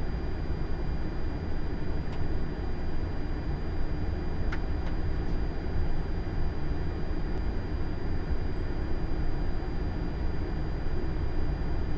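Steady rush of airflow and engine noise in the cockpit of an Airbus A330-300 on final approach with the landing gear down, heaviest in the low end, with a faint steady high tone running through it.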